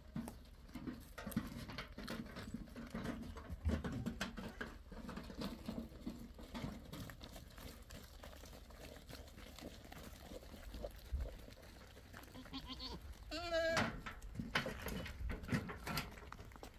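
Goats moving over stony gravel, with scattered hoof clicks and scuffs, and one goat giving a loud, wavering bleat about three-quarters of the way through.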